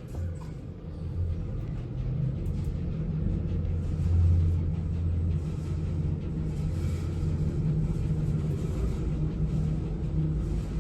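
Passenger lift car travelling down: a steady low rumble and hum from the moving car and its machinery, swelling a little about four seconds in.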